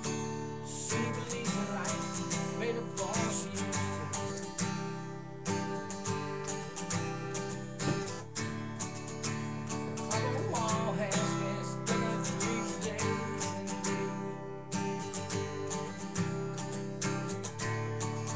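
Steel-string acoustic guitar strummed steadily, chords ringing in a regular rhythm.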